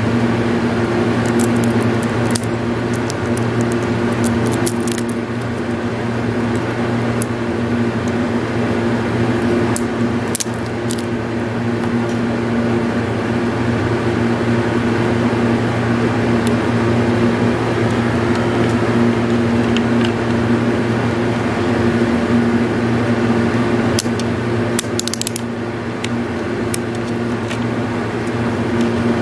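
A steady machine hum that runs unchanged throughout, with a few small clicks and taps from a 9 V battery snap and plastic multimeter parts being handled in the first few seconds and again near the end.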